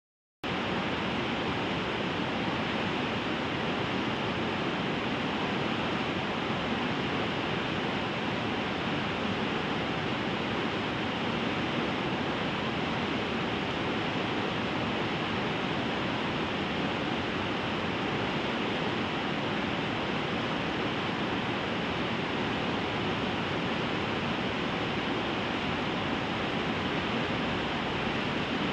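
Steady rush of white-water rapids on the River Glaslyn, a dense, even noise that starts abruptly about half a second in and holds without change.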